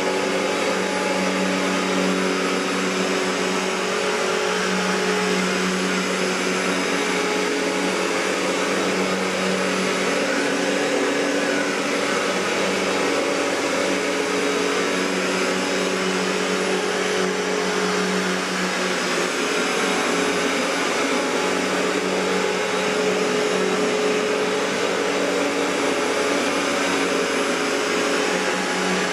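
1994 Riccar N2000 upright vacuum cleaner with its Panasonic-made motor, running steadily: a constant rushing whir over a steady low hum.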